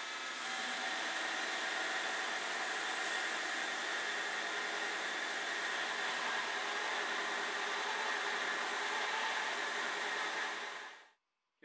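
Belt grinder running, with a 4140 tool-steel bottom fuller being ground against the abrasive belt: a steady, even hiss and whir that stops just before the end.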